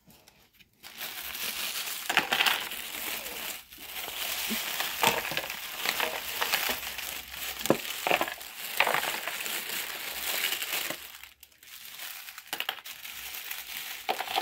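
An orange bag being crumpled and rustled as hands pull it out of a cardboard box packed with rocks. The rustling starts about a second in, with sharp crackles throughout and a brief lull near the end.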